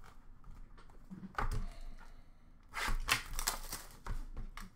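Sealed hockey card boxes being taken from a stack and handled: a knock about a second and a half in, then a rustle and scrape of cardboard and plastic wrap about three seconds in.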